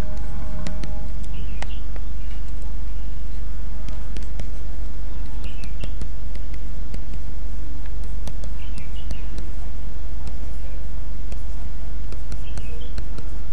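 Steady low electrical hum with scattered faint clicks and a few faint short chirps, about one every three seconds.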